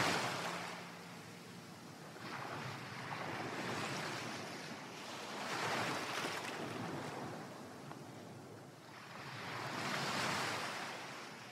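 Ocean surf sound effect: waves washing in and drawing back, swelling and fading about every three to four seconds.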